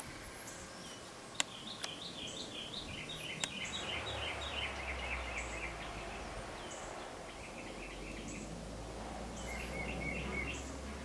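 Unseen small birds chirping in quick repeated series of notes, several runs through the stretch, over a low steady rumble that sets in about four seconds in. A few sharp clicks come in the first few seconds.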